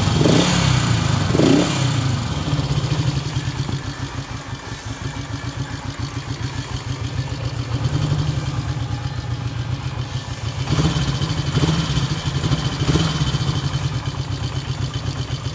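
Honda CB77 Superhawk's air-cooled 305 cc parallel-twin engine running just after a cold start, mostly at a steady idle, with short blips of the throttle in the first two seconds and again a few times near the end.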